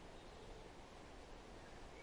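Faint, steady forest ambience hiss with one or two very faint, brief bird chirps.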